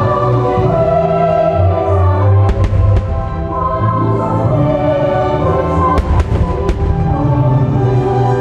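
Choral and orchestral Christmas music of a fireworks show soundtrack, with firework bursts cracking over it: two about two and a half seconds in and a cluster of three about six seconds in.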